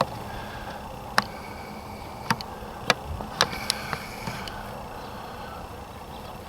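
Small birds at a feeder, house sparrows and house finches, chirping faintly now and then over a steady background hum, with a dozen or so sharp isolated clicks.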